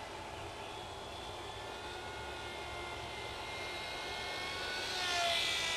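Graupner Nemesis micro RC plane's brushless electric motor and propeller whining in flight. It grows louder and passes close about five seconds in, its pitch falling as it goes by.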